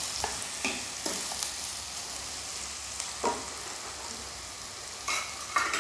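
Chopped onions frying in ghee in a kadai, a steady sizzle. A few clicks of the stirring spoon against the pan come in the first second and a half, with a cluster of sharper clicks near the end.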